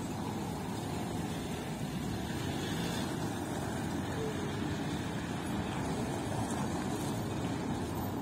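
Citroën C6 saloon moving slowly over cobblestones, its engine and tyres a steady low rumble.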